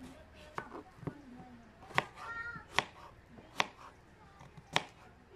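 A knife cutting peeled potatoes into small pieces on a plastic chopping board: four sharp knocks of the blade striking the board, about a second apart, with lighter cuts before them.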